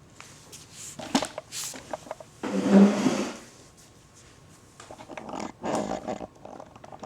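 Cables being handled and their connectors pushed into sockets on the circuit board, with sharp clicks about a second in. A short low voice-like groan, the loudest sound, comes about halfway through.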